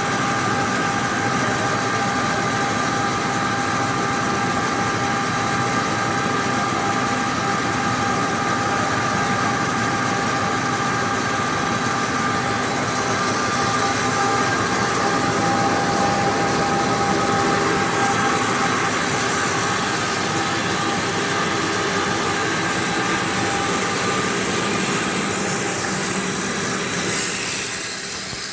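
Extruded snack production line running: steady machinery noise with a few constant whining tones, easing off slightly near the end.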